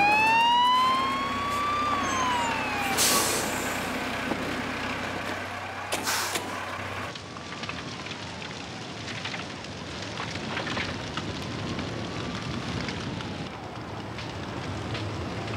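Dennis fire engine's siren wailing, rising and falling over the engine's running. It is loudest at first, then fades to a fainter, slower wail. Two short bursts of hiss come about three and six seconds in.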